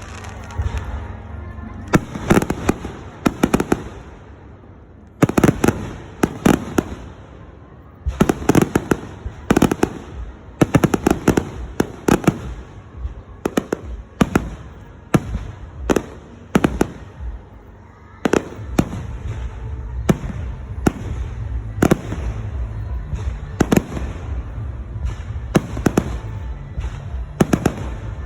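Aerial display fireworks bursting: dense volleys of sharp bangs in quick succession, with brief lulls between the volleys.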